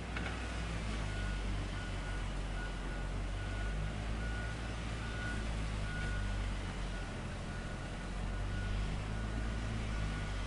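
Heavy vehicle's diesel engine running steadily while its reversing alarm beeps in a regular series, a little over one beep a second.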